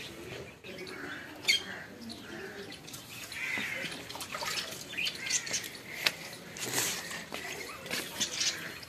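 Birds chirping and squawking in repeated short, high calls, one louder call about a second and a half in.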